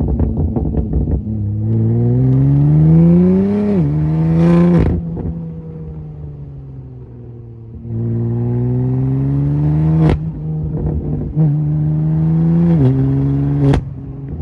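2015 BMW M4 F82's twin-turbo inline-six, breathing through a straight-through aftermarket exhaust (Gesi G-Sport downpipe, Active Autowerke equal-length mid-pipe, Maad Max valved axle-back), revving up twice. Each time the revs climb and then drop sharply, and there are loud cracks from the exhaust about a third of the way in, about two-thirds in and near the end.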